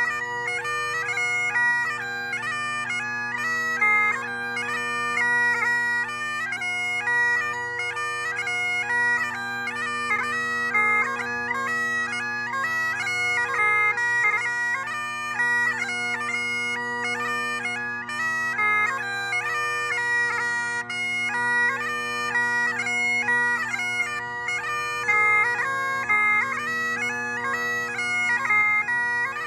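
Great Highland bagpipe playing a tune: the chanter's melody, full of quick grace notes, over the steady drone of the pipes.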